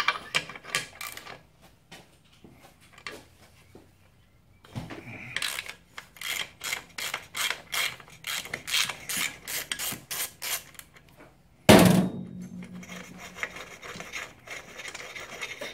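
Socket ratchet loosening a 19 mm swing-arm pivot bolt on a Yamaha WR450F's rear suspension linkage: a steady run of ratchet clicks as the bolt is undone, then one loud sharp knock near the end.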